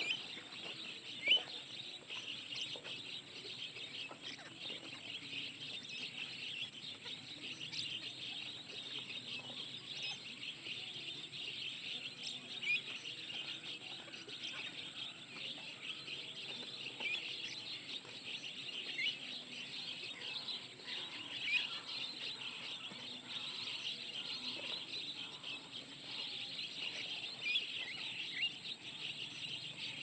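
Many small birds chirping continuously, a dense chatter of short rising chirps, over a faint steady high-pitched tone.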